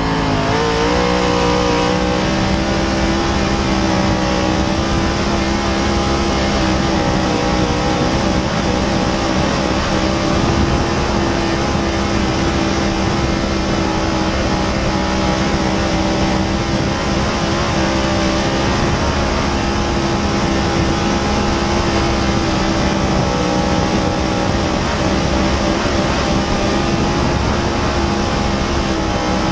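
Dirt late model race car's V8 engine run flat out around a dirt oval, heard from inside the cockpit: a loud, steady drone whose pitch barely wavers, the driver never lifting off the throttle. The pitch climbs briefly right at the start.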